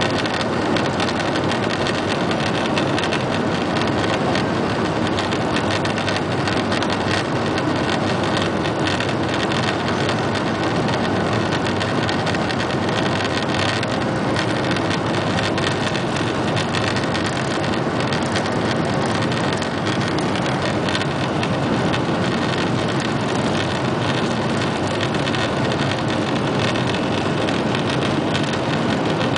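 Steady jet engine noise of a Boeing 737-800's CFM56 turbofans with airframe and runway rumble, heard from inside the passenger cabin while the airliner rolls along the runway.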